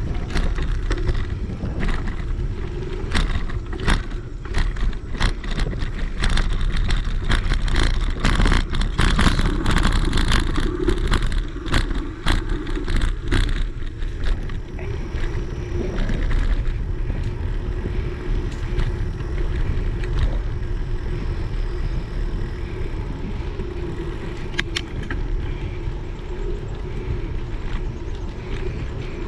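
Bicycle rolling along a paved path, heard from a GoPro riding along: steady tyre rumble and wind noise on the microphone. Over the first half comes a run of sharp clicks and rattles, which then thin out to an occasional one.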